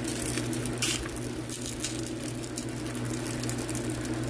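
Flatbread dough cooking on a dry, hot frying pan: light crackling with a few soft taps, over a steady low hum.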